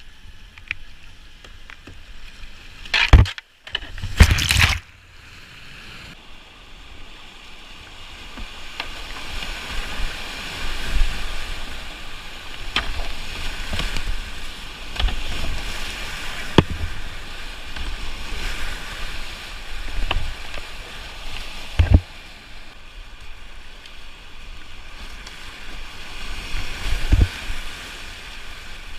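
Whitewater river rushing and splashing around a kayak, heard on the boat's GoPro, with short sharp knocks and splashes now and then. Two loud splashes come about three to five seconds in.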